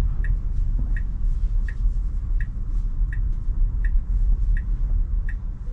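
Tesla Model Y turn-signal indicator ticking steadily, about one tick every 0.7 seconds, over a low, steady rumble of the car moving.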